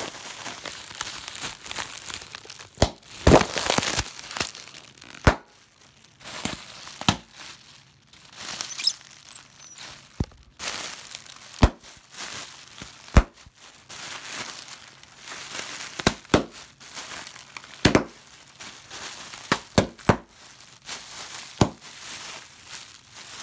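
Clear plastic packaging being crinkled and torn open by hand: irregular rustling with many sharp crackles and snaps.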